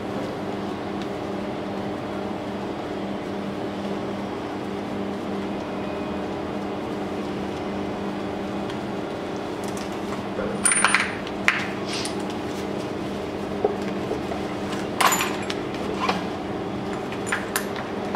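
A steady low hum, and from about halfway through, sharp metallic clinks and clanks of hand tools against the cylinder head of a 2.0 TDI diesel engine as a fuel injector is unbolted and lifted out.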